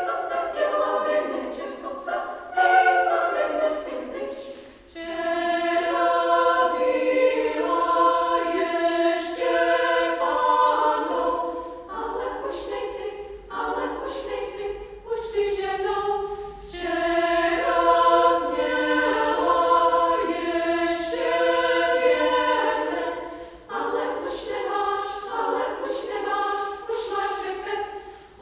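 Women's choir singing a cappella, in sustained phrases separated by brief breaths.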